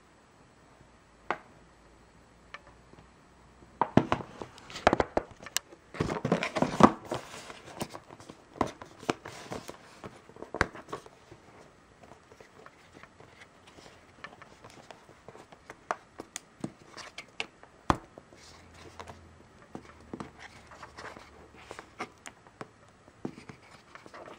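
A cardboard product box being handled and pried open by hand: scattered clicks and taps, with fingernails scraping on the card. It is busiest a few seconds in.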